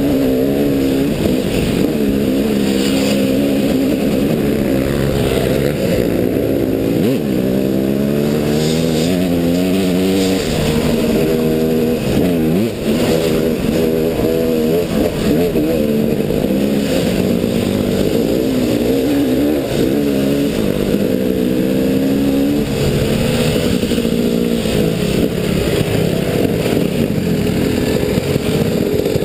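Dirt bike engine, heard close from the rider's helmet camera, revving up and down as the rider works the throttle through the gears, with quick drops in pitch where the throttle is chopped.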